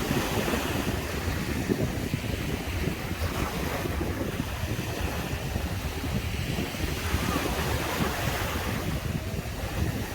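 Caribbean surf breaking and washing on the beach, a continuous wash that swells every few seconds, with wind rumbling on the microphone.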